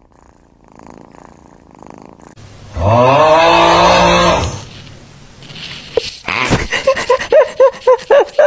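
A house cat gives a long, loud, drawn-out cry as it yawns, its pitch sliding up and then holding. A few seconds later comes a quick run of short, squeaky notes, about four a second.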